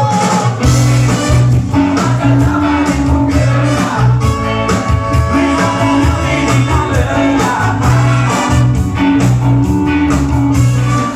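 Ska band playing live and loud, with a bouncing bass line, guitars, a horn section and singing, heard from within the crowd.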